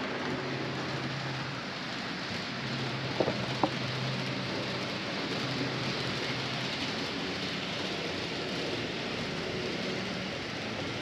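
Model trains running on a large layout: a steady rolling hiss of wheels on track with an on-and-off low motor hum, and a few sharp clicks about three seconds in.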